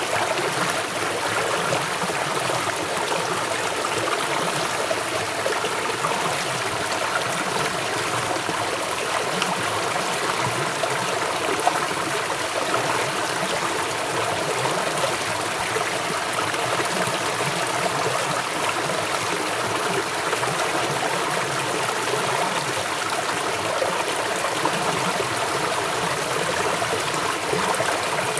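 River water flowing swiftly over rocks: a steady rushing and gurgling without pause.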